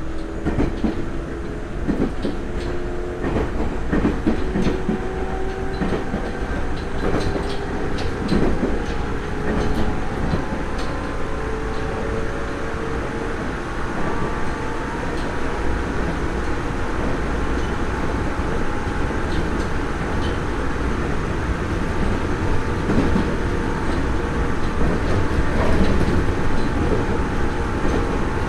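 Nagoya Municipal Subway 3000 series train, an armature-chopper-controlled electric train, heard from inside the car while running along the track, with a steady rumble and wheels clicking over rail joints. Thin motor whine tones rise slowly over the first dozen seconds, then hold level.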